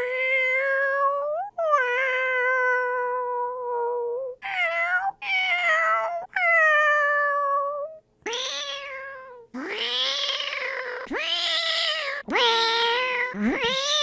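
A person imitating cat meows with the mouth: a run of drawn-out meows, the first few long and fairly steady in pitch, then from about halfway shorter, rougher meows that rise and fall, one after another.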